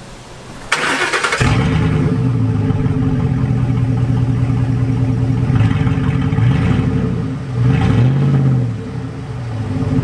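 2010 Ford F-150's 5.4-liter V8 with a straight-piped exhaust (second catalytic converter removed) cranking and catching about a second in, then idling, with two short revs around the middle and near the end.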